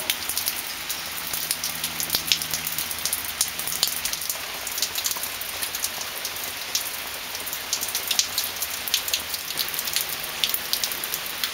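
Steady rain falling on a concrete patio and puddled ground, a dense patter of individual drops hitting the wet surfaces.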